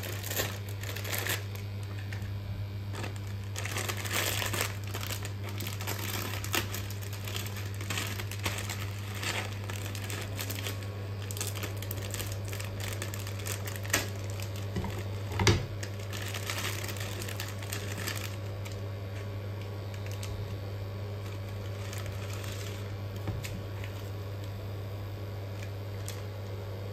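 Plastic instant-noodle packet crinkling as it is handled and cut open with scissors, mostly in the first two-thirds, with a sharp click about halfway. A steady low hum runs underneath.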